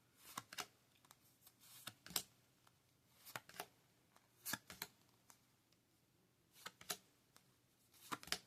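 Yu-Gi-Oh trading cards being flipped through one at a time: faint, sharp card snaps, mostly in pairs, every second or two.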